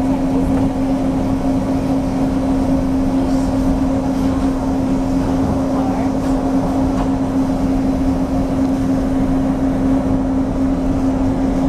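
A steady machine hum holding one pitch, over a low rumble.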